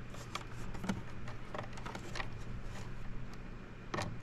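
Small irregular clicks and light rattles of hands fitting a wire onto a power supply's screw terminal, with a sharper click about four seconds in, over a low steady hum.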